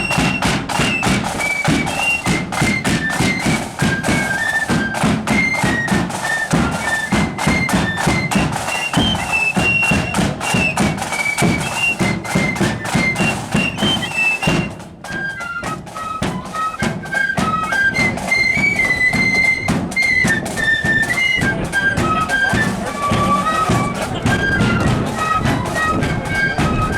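Marching flute band playing a tune: flutes carry a high melody over steady drum beats. There is a brief break about halfway through before the tune resumes.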